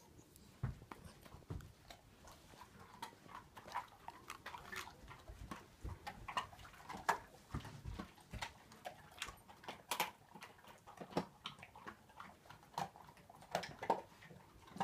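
Dogs chewing hard stick treats: irregular sharp crunches and clicks, a few each second, with some duller knocks of teeth and jaw.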